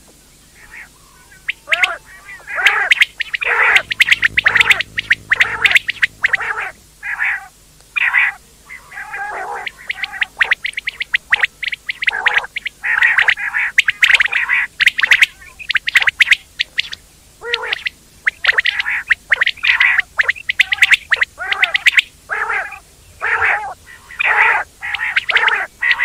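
Quail calling over and over: many short, sharp calls in quick irregular runs, with a brief lull near the start and another about ten seconds in.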